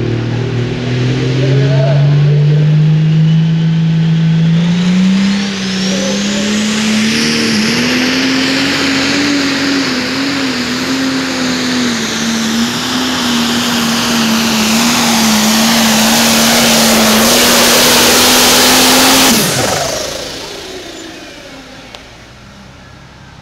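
Light-limited pro stock pulling tractor's turbocharged diesel engine revving up under full load as it pulls the sled, with a rising turbo whistle. It holds high revs with slight wavering for over ten seconds, then the revs drop sharply about nineteen seconds in as the pull ends and the sound dies away.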